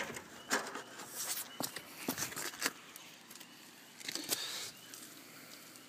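Scattered, irregular light clicks and knocks: footsteps and handling noise as the camera is carried along the wooden top of the dam.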